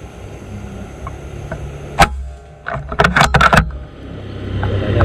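PCP air rifle shot: one sharp crack about two seconds in, followed by a short run of clicks and clatter just under a second later, over a low steady rumble.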